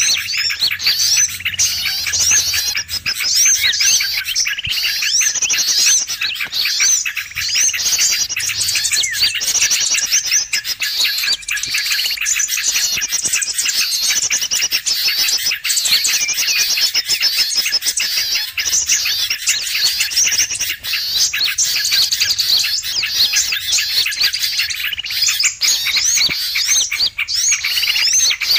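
A dense, noisy chorus of many small songbirds chirping, trilling and whistling all at once without a break, in quick rising and falling notes. It is a bird-lure (pikat) track mixing sooty-headed bulbul calls with small-bird calls, meant to draw wild birds in.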